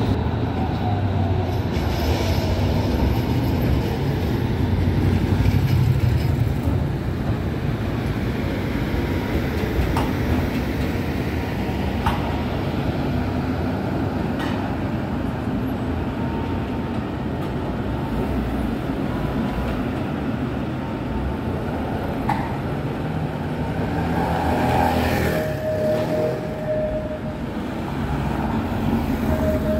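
Trams running along street track among road traffic: a steady low rumble with sharp clicks now and then, and a short squeal near the end.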